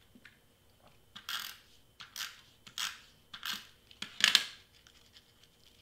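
Adhesive tape runner drawn across cardstock in about five short strokes, under a second apart, the last one the loudest.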